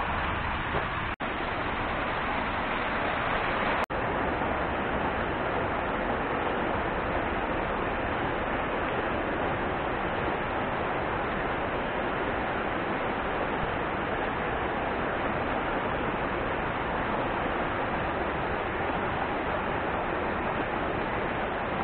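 Water rushing steadily over a small concrete dam and churning through the shallow stream below it, an even, loud rush. Two brief gaps break it in the first few seconds.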